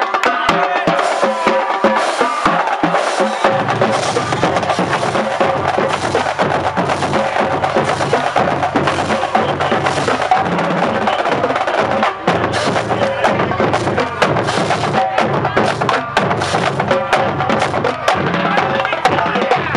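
High school marching drumline playing a fast cadence on snare drums, tenor drums and cymbals, with bass drums joining about three and a half seconds in.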